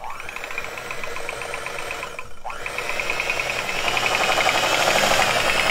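Handheld electric mixer whipping heavy cream in a glass bowl, its motor whining steadily. It spins up at the start, cuts out briefly about two and a half seconds in, then spins up again and grows louder toward the end.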